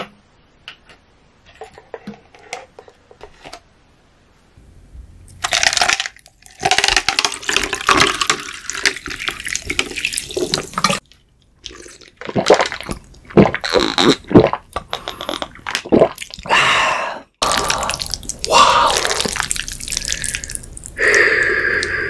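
A few faint clicks, then water poured from a plastic bottle into a plastic cup of ice for several seconds, followed by a run of loud gulps as it is drunk.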